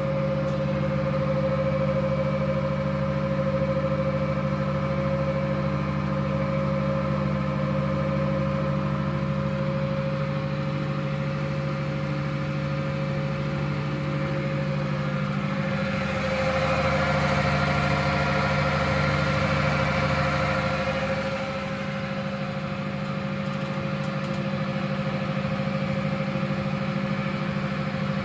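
TOS MN 80A precision lathe running, with a steady high whine over a low hum. From about sixteen seconds in it grows louder and rougher for some five seconds, then settles back to a steady run.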